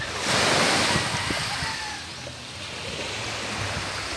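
Small sea waves washing up a pebble beach: one louder wash starts just after the beginning and fades over about a second and a half, then a steady lower surf hiss follows.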